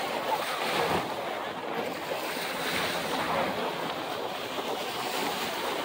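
Steady wash of shallow surf around people wading in the sea, mixed with wind buffeting the microphone.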